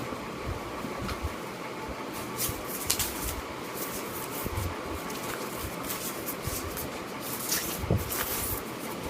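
Packaging being handled: scattered rustles and light clicks over a steady room hum.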